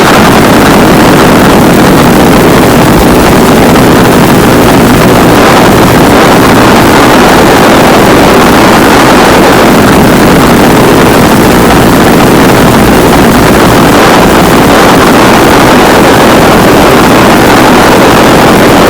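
Loud, unvarying rumbling roar of an underground nuclear explosion heaving up the ground, starting abruptly as music cuts off.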